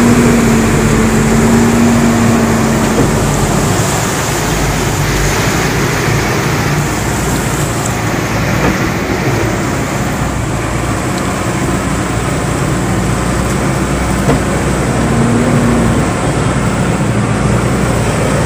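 Cars and scooters driving through a flooded street in heavy rain: a steady rush of rain and water with engines running. A low engine note swells near the start and again near the end.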